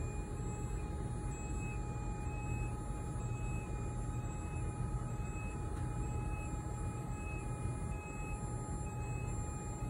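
Electric scissor lift's DC hydraulic pump motor running steadily as the platform rises: an even low hum with faint high tones over it.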